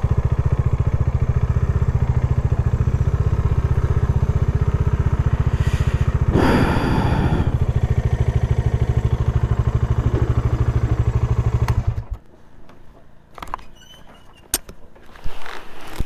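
Bajaj Dominar 400 motorcycle's single-cylinder engine running at a steady, pulsing low speed, with a brief rushing noise about six seconds in. The engine is switched off about twelve seconds in, followed by a few light clicks and clatter.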